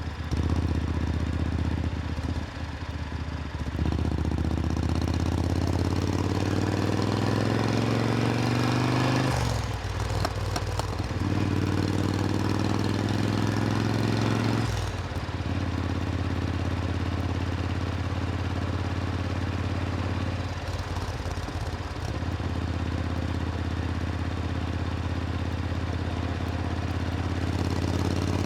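Supercharged Triumph Thunderbird Storm's parallel-twin engine running, with its pitch climbing steadily for several seconds. It breaks off briefly twice, then settles into a steady run with one more short dip later on.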